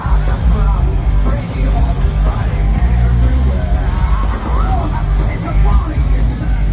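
Loud rock-style show soundtrack music with heavy bass and wordless singing or yelling voices over it.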